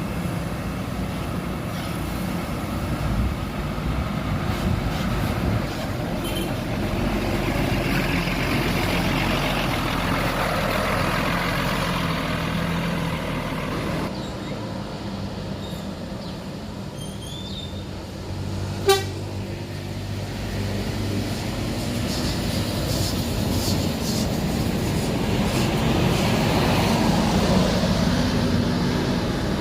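Buses driving past on a road, their diesel engines rising and fading as each one passes, with a single short, sharp horn toot about two-thirds of the way through.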